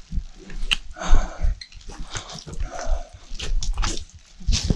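Irregular rustling, scuffs and clicks of rain gear and backpacks being handled, with a few sharper knocks.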